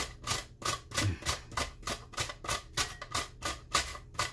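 Red onion being sliced on a handheld plastic mandoline slicer: an even run of quick scraping strokes, about three a second.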